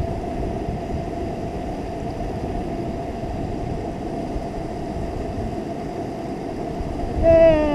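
River water rushing steadily over rocks in a fast riffle, with wind on the microphone. Near the end a voice calls out once, drawn out and falling in pitch.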